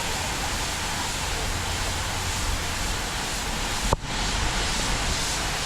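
Steady wind rushing over the microphone on an open chairlift, with a single sharp click about four seconds in.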